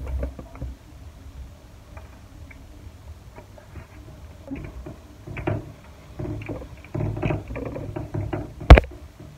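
Handling noise of a self-adhesive mirror panel being fitted and pressed onto a door: scattered rustles and light knocks, with one sharp loud knock near the end.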